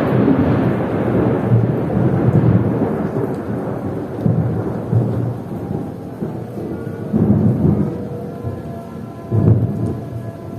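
Heavy rain with a long roll of thunder that is loudest at the start and dies away over several seconds, followed by a few shorter low rumbles later on.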